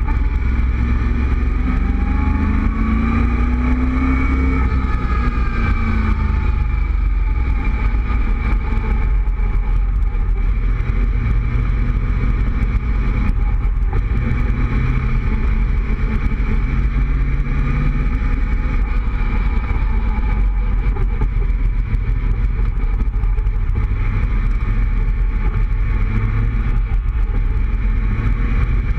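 Cobra roadster's engine running at road speed, its pitch rising and falling about two to six seconds in, then holding steady. Wind buffets the microphone in the open cockpit, adding a heavy low rumble.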